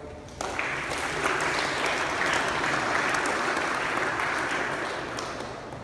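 Audience applauding in a large, echoing hall. The clapping starts suddenly about half a second in and fades away near the end.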